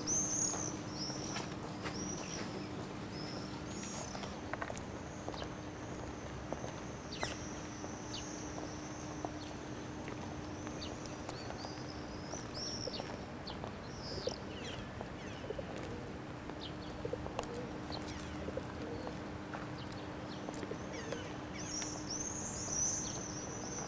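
Small birds chirping in quick, high-pitched runs, busiest at the start and again near the end, over a steady low hum.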